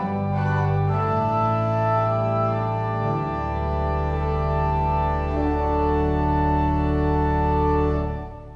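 Church organ playing the closing chords of a hymn: full held chords that change a few times, with a deep bass note coming in about three seconds in. The final chord is released near the end and dies away.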